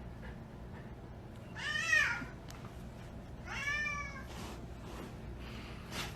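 A cat meowing twice, two drawn-out calls about a second and a half apart, each rising and falling in pitch.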